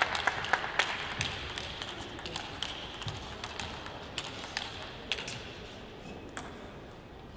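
Scattered, irregular taps of a table tennis ball on bats and table. Dense clapping tails off over the first second or two.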